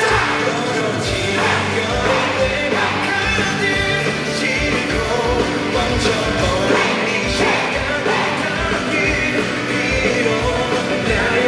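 Live pop-rock band playing: male voice singing over drums, bass and electric guitars.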